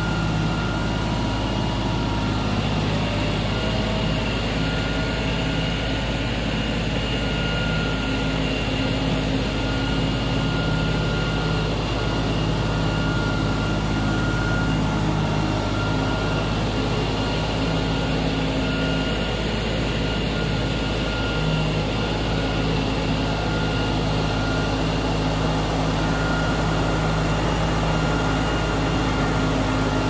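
LS XR3135 compact tractor's diesel engine running steadily as its front loader works, with a thin high whine over the engine note.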